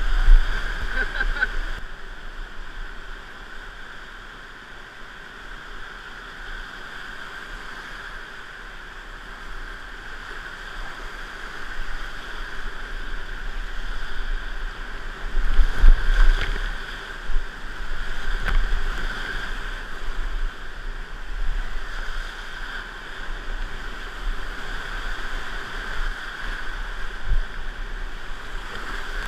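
Rushing whitewater around a whitewater kayak running a rapid, heard from on the boat as a steady rush. Louder surges of splashing come near the start and again about halfway through.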